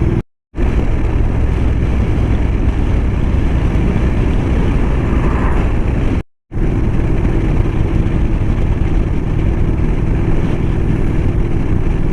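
Motorcycle engine running steadily on the move, with heavy wind rush on the microphone. The sound cuts out completely for a moment twice, about half a second in and about six seconds in.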